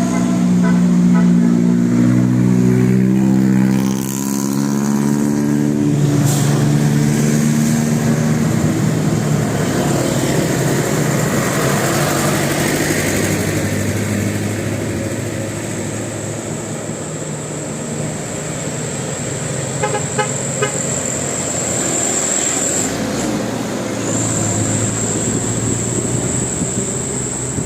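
Telolet basuri multi-tone vehicle horn playing a tune of stepped notes for about the first eight seconds, then vehicle engine and road noise.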